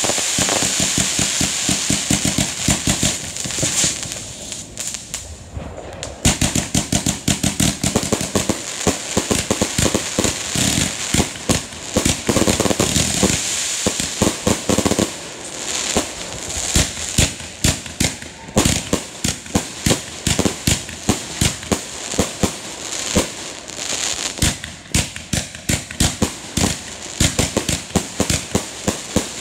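Fireworks going off in rapid volleys of bangs, with crackling stars. There is a short lull about four seconds in, then the shots come again almost without a break.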